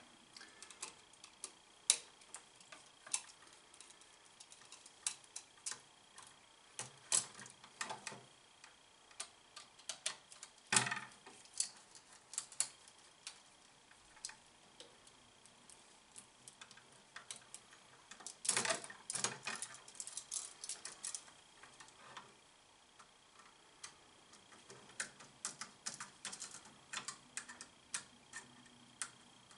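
Irregular small metallic clicks and taps of a screwdriver on a light switch's brass terminal screws and steel mounting strap as the wires are unhooked, coming in scattered clusters.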